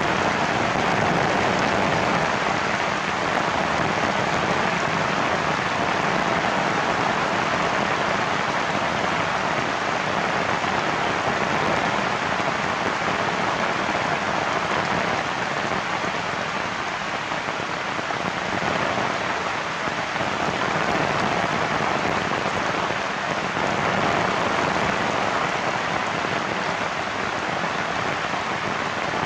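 Heavy rain falling steadily, an even hiss of drops with no break.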